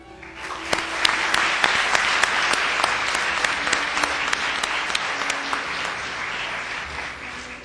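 Audience applauding: a dense spread of many hands clapping that swells about half a second in and fades near the end.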